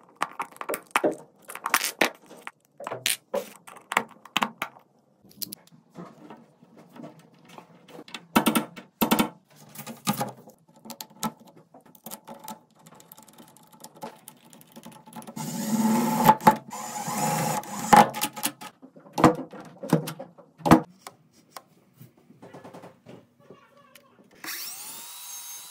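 Clicks, taps and clatter of hands working metal hardware and tools. A power tool runs for about three seconds midway, and a motor whines up briefly near the end.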